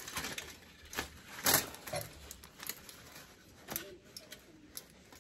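Brown paper and aluminium foil wrapping crinkling and rustling in irregular bursts as hands unwrap a succulent cutting, the loudest crinkle about a second and a half in.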